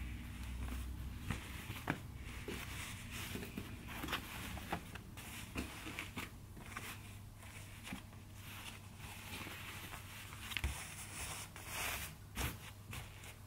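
Kimono obi sashes rustling and swishing as they are handled, laid out and smoothed flat by hand, with scattered light taps and scrapes. A low steady hum runs underneath.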